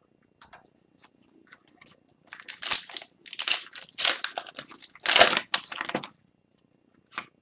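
Foil wrapper of a hockey card pack being torn open and crinkled. The noise comes in several loud bursts over about four seconds, after a few faint ticks, and a few quieter clicks follow near the end.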